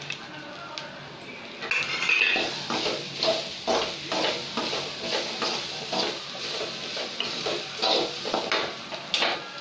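Slotted steel spoon stirring and scraping boiled chickpeas and grated coconut around a metal kadai. It starts about two seconds in and goes in quick repeated scraping strokes, two or three a second.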